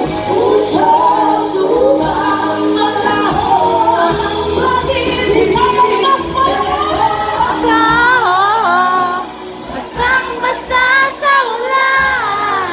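Live band performing: female voices singing a melody with wavering vibrato over electric guitar, bass and drums, with a brief drop in volume about nine seconds in.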